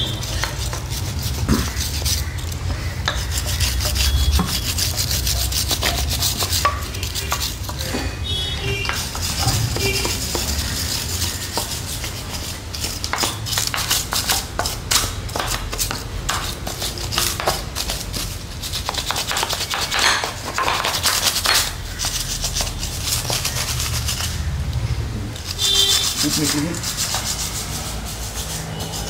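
Wire brush scrubbing dust and oily sludge off a Hindustan Ambassador engine block in repeated back-and-forth strokes.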